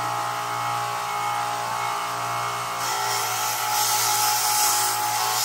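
Small electric belt grinder running with a steady motor hum. About three seconds in, steel is pressed against the zirconia belt and a grinding hiss joins the hum as metal is taken off.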